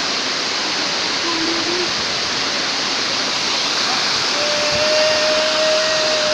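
Sanje Waterfalls' falling water, a loud steady rush of water noise. A thin steady tone rises over it briefly about a second in and again for about two seconds near the end.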